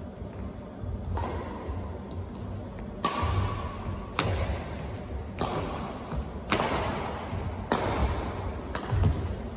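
Badminton rackets hitting a shuttlecock back and forth in a singles rally: about seven sharp hits a little over a second apart, each ringing out in the sports hall's echo. Low thuds of the players' feet on the court run underneath.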